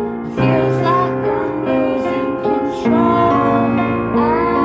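Upright piano played slowly, with sustained chords struck a few times, and a woman's voice singing a melody over it, its pitch sliding between notes.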